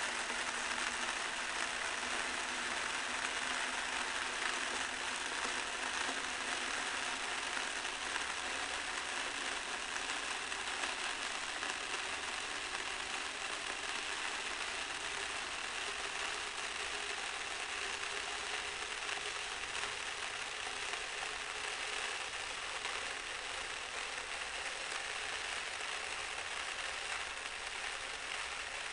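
Coarse sand grains raining steadily onto a heap of sand, making an even, unbroken patter.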